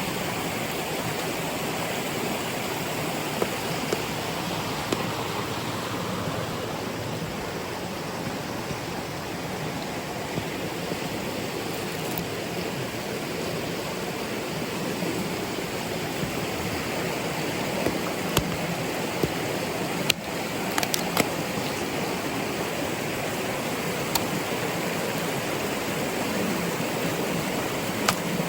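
Rushing stream water running steadily over rocks, with a few light clicks now and then.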